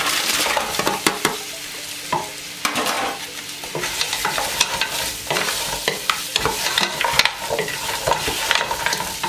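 Chunks of grilled goat meat tipped from a foil tray into a pot of hot oil with garlic and ginger, then stirred with a wooden spatula: frying sizzle with frequent knocks and scrapes of the spatula and meat against the pot.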